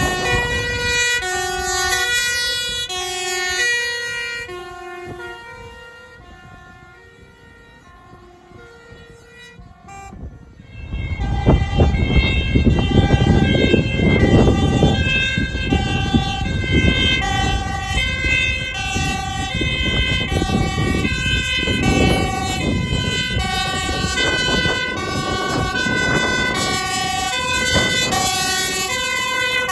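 Dutch fire engines' two-tone sirens switching steadily between a high and a low note. The first siren fades away over the first few seconds. From about a third of the way in, a louder siren comes in with a heavy low rumble as another fire engine approaches.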